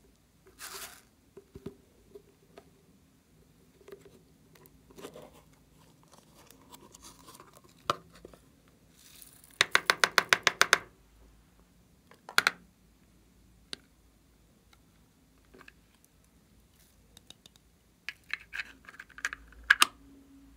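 Plastic slime containers handled and opened by hand: light scraping and knocking, with a fast run of about eight sharp plastic clicks in about a second near the middle, one more sharp click soon after, and a cluster of clicks near the end.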